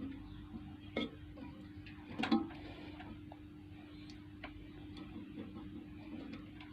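A few light clicks and knocks from handling the opened microwave oven's parts, the clearest about a second and two seconds in, over a faint steady hum.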